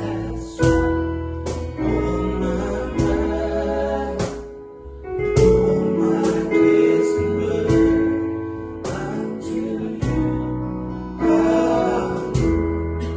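Worship band playing a slow gospel song: sustained keyboard and guitar chords over bass, with cajon strikes every second or two.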